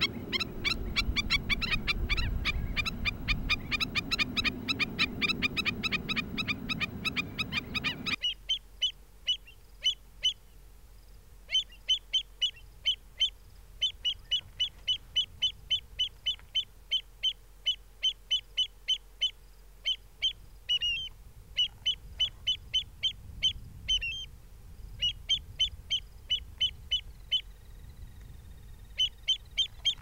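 Shorebirds calling. For the first eight seconds there is a dense chorus of rapid, high calls over a noisy background. It then cuts to a single bird's sharp, high calls, repeated about three times a second in runs with short pauses.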